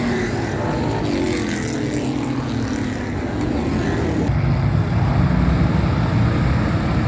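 Dirt-track stock car engines. Several cars run past close by, their pitch falling as they go. After an abrupt change a little over four seconds in, a pack of cars running together makes a heavy low rumble.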